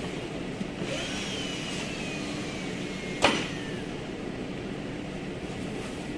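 Workshop noise: a steady hum, with a squeak falling slowly in pitch that ends in a single sharp knock about three seconds in.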